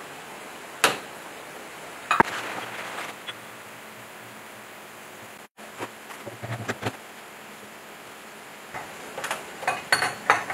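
Metal tools and engine parts clinking and knocking during reassembly of a single-cylinder diesel engine: a sharp clank about a second in, another with a short metallic ring about two seconds in, softer knocks in the middle and a quick cluster of clinks near the end.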